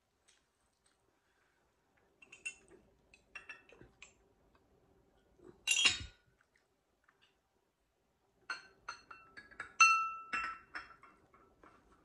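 Porcelain teacup, saucer and tableware being handled: scattered light clicks and taps, one loud knock about six seconds in, then a quick run of china clinks with a short ringing tone a little before ten seconds in.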